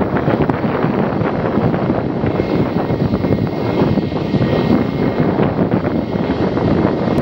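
Airbus A320-200's IAE V2527-A5 turbofan engines at takeoff power, a loud steady noise, with a faint high whine coming in about two seconds in.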